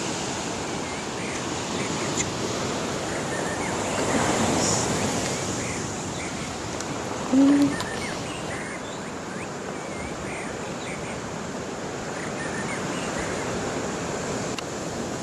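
Steady rushing of ocean surf, with faint scattered chirps over it and one brief low call about halfway through, the loudest moment.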